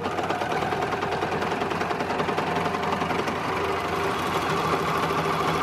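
Juki MO-654DE four-thread overlocker (serger) running steadily at speed, stitching along the edge of a fabric scrap while its blade trims off the raw edge.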